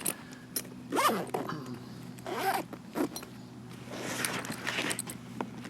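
Tool bag zipper being pulled open in three short rasping strokes, with a few light clicks.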